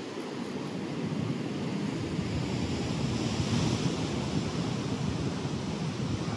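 Steady rush of ocean surf, with wind buffeting the microphone. The sound swells a little in the middle.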